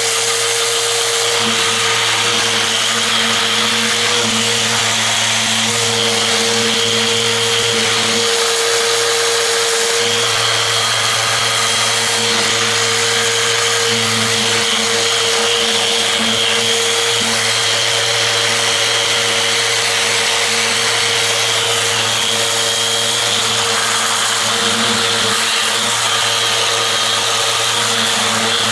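Electric random orbital sander running steadily with coarse 40-grit paper on a steel fire plate, a constant motor whine over the hiss of the abrasive scrubbing the rusty steel.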